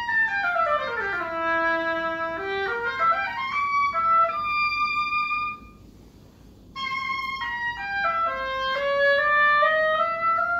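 Oboe playing a fast virtuoso run that sweeps down and back up, breaking off briefly about halfway, then resuming with quick phrases that end on a long held note with vibrato.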